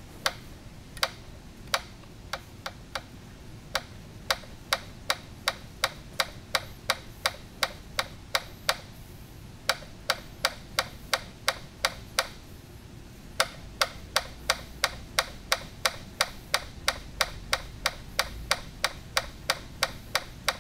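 Hand ratchet clicking at about three clicks a second, with a few short pauses, as a bolt is run back in.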